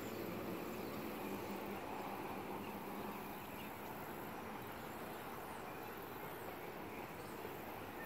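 Steady bayou ambience: insects chirring, with a few faint, short, high chirps.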